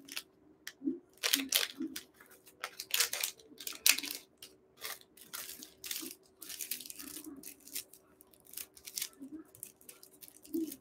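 Plastic packaging crinkling and tearing as a small wrapped item is opened by hand, in irregular short rustles.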